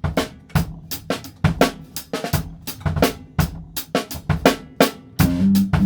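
Four-piece drum kit playing a steady groove of bass drum, snare and hi-hat, the snare a 2004 Magstar purpleheart stave-segment 5.5 x 14. Near the end sustained low notes of the band come in under the drums.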